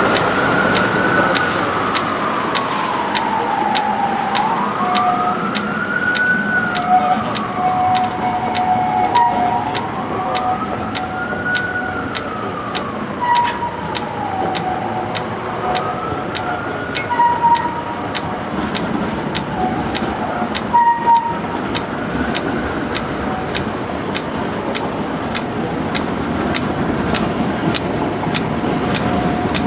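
An emergency vehicle's siren wailing, its pitch rising and falling slowly about every five seconds, fading out about three quarters of the way through, over steady street traffic noise.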